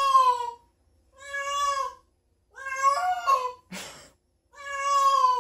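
A domestic cat meowing repeatedly: four long, drawn-out meows, about one every second and a half. A short, scuffing noise comes between the third and fourth meow.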